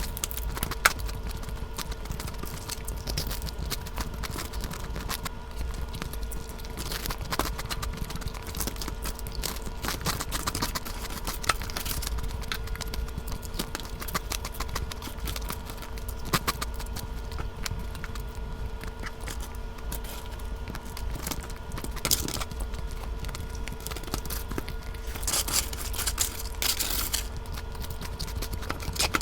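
Crunchy fried chicken being bitten and chewed close to the microphone: irregular crackling crunches, with a faint steady hum underneath.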